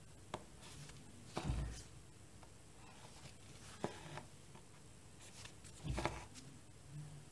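Hands handling cross-stitch fabric in an embroidery hoop: soft rustles and thumps as the cloth and hoop are moved, about a second and a half in and again about six seconds in, with a couple of sharp light ticks between.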